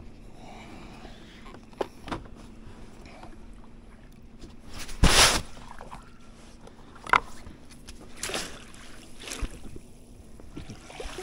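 Scattered knocks, bumps and handling noise in a small boat, with a louder short rushing burst about five seconds in and a faint steady hum underneath.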